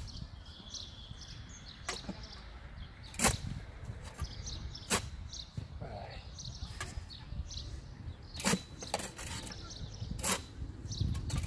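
Manual clamshell post-hole digger driven into lawn soil, with four sharp strikes about two seconds apart as the blades bite into the ground. Birds chirp faintly in the background.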